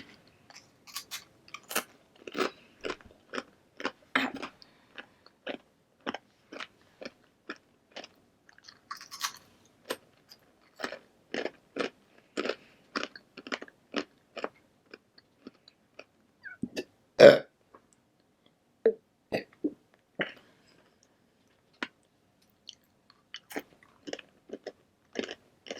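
Close-up chewing and crunching of tortilla chips: crisp bites and chews, about two or three a second, with one louder burp about seventeen seconds in.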